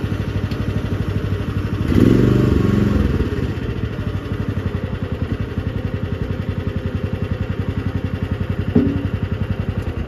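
A mini skid steer loader's 13.5 hp Briggs & Stratton engine runs with a steady pulsing beat as the machine drives. About two seconds in, it revs up louder for about a second, then settles back. There is a brief louder blip near the end.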